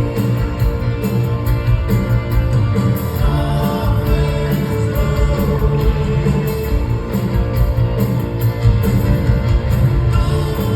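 Live rock band playing, with singing over sustained instruments and a steady bass.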